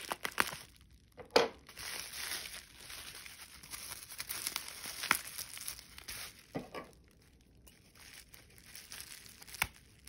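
Bubble-wrap packaging crinkling and rustling as it is cut with scissors and pulled open, with sharp crackles throughout, the loudest about a second and a half in.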